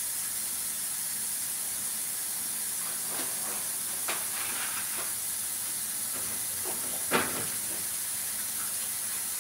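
A few light knocks and clinks of containers being moved about on the shelves of an open refrigerator, the sharpest about seven seconds in, over a steady hiss.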